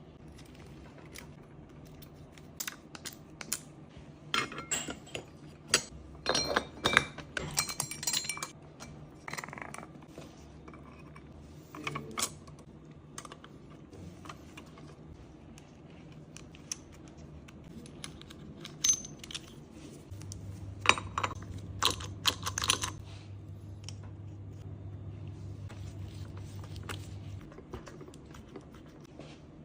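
Metal engine parts and tools clinking and tapping against each other, in scattered irregular knocks. A low steady hum comes in for several seconds past the middle.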